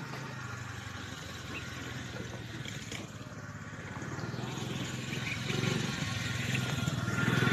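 A small two-wheeler engine running steadily at low revs, growing louder over the last few seconds.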